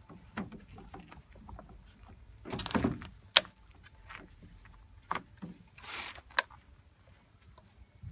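Handling of an iPad Pro and a leather case as the tablet is worked into it: rustling and scraping of leather twice, with scattered light taps and two sharp clicks, the first the loudest.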